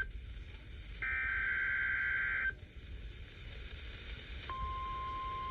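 Emergency Alert System header: the tail of one SAME digital data burst right at the start, then a second data burst from about one second in, lasting about a second and a half. About four and a half seconds in, a single steady attention tone of a NOAA weather-radio alert begins and holds.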